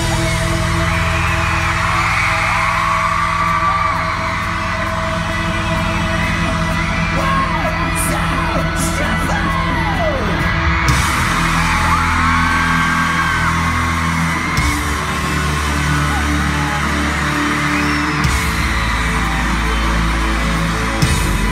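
Band's intro music over the arena PA, with steady low sustained tones, under a crowd screaming and cheering. High screams rise and fall again and again over it.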